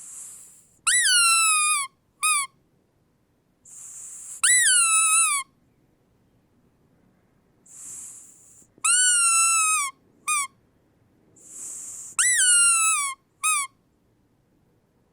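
Squeaky dog toy squeezed four times: each squeeze gives a loud, high squeak about a second long that jumps up in pitch and then sags slightly, most followed by a short second squeak, with a breathy hiss of air before each one.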